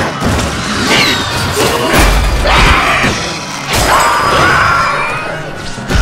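Cartoon soundtrack: music under several hard thuds and crashes, with glass shattering.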